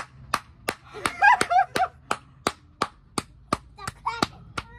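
Steady hand clapping, about three claps a second, stopping just before the end. It comes with a strained, wavering vocal cry about a second in and a shorter one near the end: a person reacting to the burning heat of a very spicy chip.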